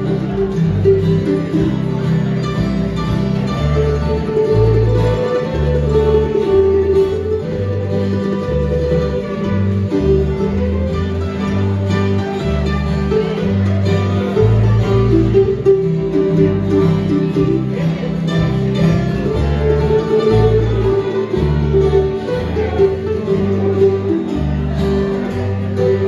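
Small bluegrass gospel band playing live: acoustic guitars and mandolin over a line of low bass notes.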